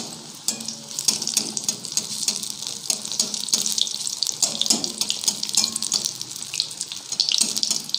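Battered brinjal slice (beguni) deep-frying in hot oil in a kadai: a steady, dense crackling sizzle.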